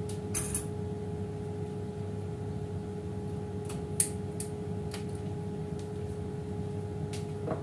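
YUI M40 air fryer running, its fan giving a steady hum, with a few light clicks over it, the sharpest about four seconds in.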